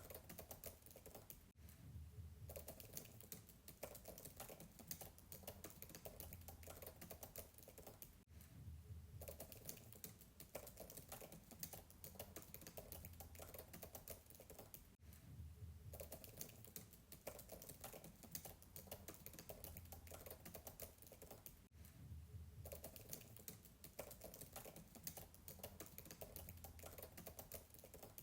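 Fast typing on a MacBook keyboard, soft rapid keystrokes heard faintly from a distance, in runs broken by a brief pause about every seven seconds.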